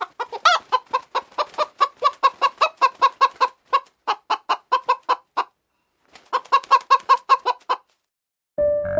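Chicken clucking: a fast string of short, evenly repeated calls, about five a second, breaking off briefly about six seconds in before a second, shorter run.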